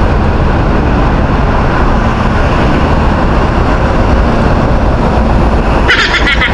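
Steady loud rumble of wind buffeting a camera microphone on a moving bicycle, mixed with road noise. Near the end there is a brief rapid rattle.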